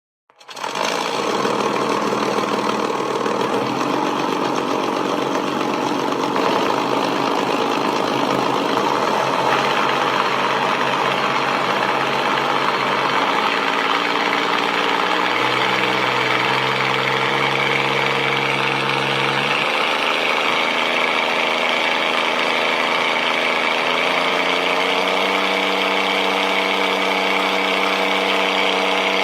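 Small propeller plane's engine running steadily, fading in at the start; its pitch shifts in steps a few times, around the middle and again near the end.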